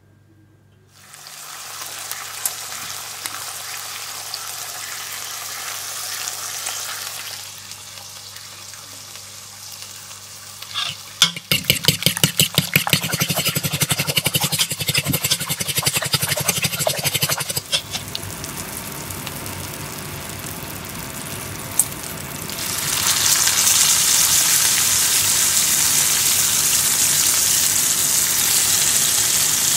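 Bacon strips sizzling in a frying pan. In the middle come about six seconds of quick, rhythmic strokes of eggs being beaten in a bowl. Near the end there is a louder sizzle as the bacon fries in its rendered fat.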